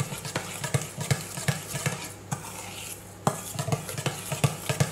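A spoon stirring chia seeds soaking in water, knocking and scraping against the dish about three to four times a second, with a pause of about a second midway; the seeds are swelling into a thick, gluey gel.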